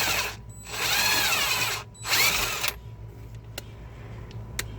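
Impact wrench running in three short trigger bursts on a bracket bolt, its motor pitch rising and falling in each burst, after the Loctited bolt has been broken loose. A couple of sharp clicks follow.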